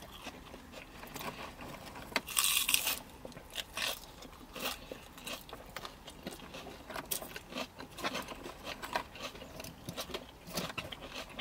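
Close-miked eating sounds: chewing and crunchy bites with crinkling of a paper burger wrapper and a cardboard food box, as many small clicks and crackles. A short, louder crackle about two seconds in.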